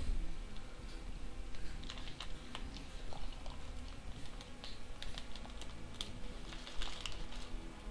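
Carbonated bottle-conditioned home-brew beer pouring from a bottle into a tilted glass and foaming up, with a soft hiss and many small irregular ticks of bubbles popping in the head.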